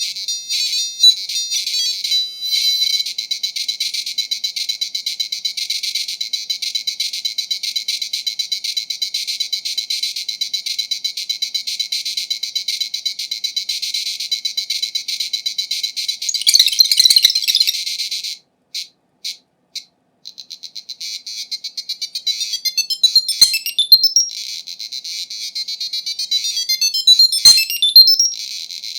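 Shrill beeping chiptune music from an IBM PC XT-compatible's PC speaker, a rapidly pulsing high tone. It breaks off for about two seconds past the middle, with a few clicks in the gap, then starts again.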